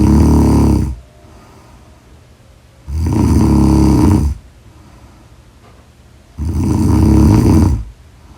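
Loud, rhythmic snoring by a sleeper. One snore ends about a second in, then two more follow, each lasting about a second and a half and coming roughly three and a half seconds apart, with much quieter pauses between.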